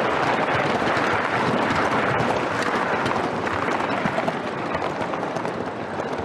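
Gauge 1 live-steam model locomotive running along its track, heard close up from on board: a steady, dense noise, a little quieter near the end.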